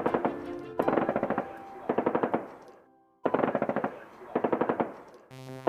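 Machine-gun fire sound effect in several short rapid bursts, with music underneath and a brief drop-out about three seconds in.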